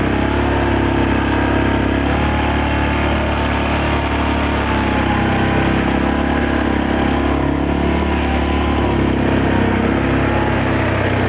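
Yamaha Grizzly 450 ATV's single-cylinder four-stroke engine running steadily, its pitch rising and falling a little with the throttle.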